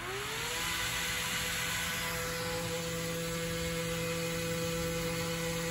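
Small electric motor driving a propeller on a pivoting test arm spins up, its whine rising in pitch over the first half second, then runs at a steady speed with a hum and the rush of air from the propeller.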